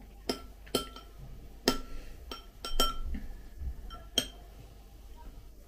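A metal spoon clinking against glassware: several sharp, uneven clinks, each ringing briefly, the last about four seconds in.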